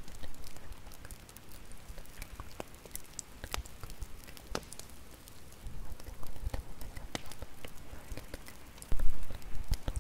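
Crackling wood fire: irregular sharp pops and snaps over a soft low rumble, with a louder low thump about nine seconds in.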